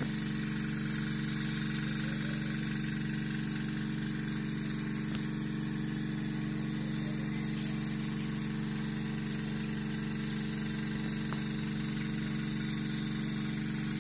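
Portable air compressor running steadily with a low hum, under the even hiss of a paint spray gun spraying.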